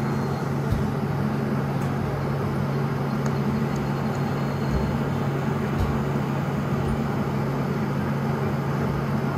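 An electric blower running steadily: an even low hum under a constant rush of air, with a couple of faint knocks.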